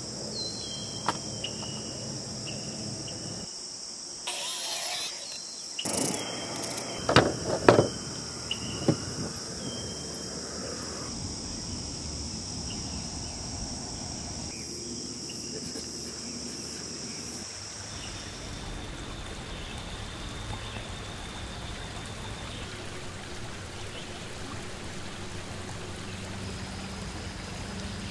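Insects buzzing steadily at a high pitch, with a few sharp knocks about seven to eight seconds in. The buzz cuts out about two-thirds of the way through, leaving a steady hiss.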